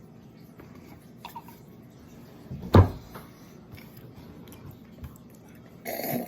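Handling noises from a Pringles can: a few faint clicks, one sharp knock a bit under three seconds in, and a short rustling burst near the end.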